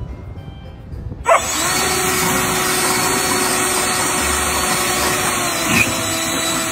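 An electric motor starts suddenly about a second in and runs steadily with a loud whirring noise.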